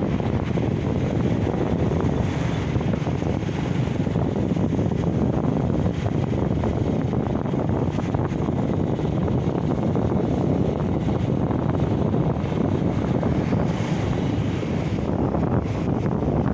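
Wind buffeting the microphone in a steady rush, with sea surf washing beneath it.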